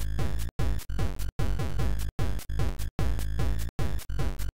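8-bit ZX Spectrum demo music: a looping beat of falling-pitch synthetic drum hits, about two to three a second, chopped by short silent gaps.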